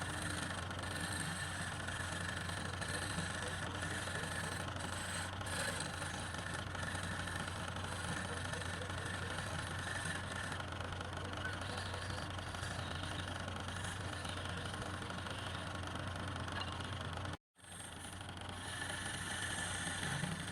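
Motor-driven wood lathe running steadily with a low, even hum. The sound cuts out completely for a moment near the end, then comes back.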